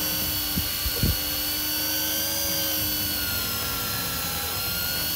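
Electric fishing reel's motor whining steadily as it winds in line under load with a fish on from deep water, its pitch sagging slightly about three seconds in. A few light knocks come about a second in.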